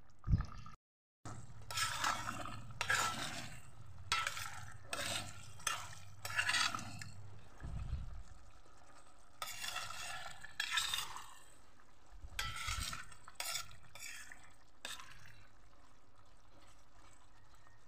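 A spoon stirring and scraping through thick, simmering pork afritada in a metal pot: runs of short scraping strokes about twice a second, in three bursts, stopping a few seconds before the end. A brief gap in the sound about a second in.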